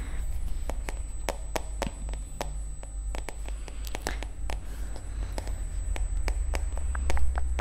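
Black paddle hairbrush handled close to the microphone, its bristles giving sharp, irregular clicks about three a second, over a steady low hum.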